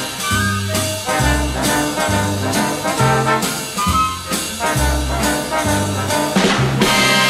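Instrumental break of an upbeat Italian swing-style song: brass instruments over a bass line that steps from note to note about twice a second.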